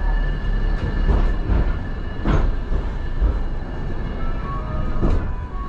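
Nankai Koyasan cable car heard from inside its cabin as it runs slowly into the station: a steady low rumble of wheels on rail with a thin steady whine, broken by a few sharp clacks as it passes over track fittings. Short higher tones sound near the end.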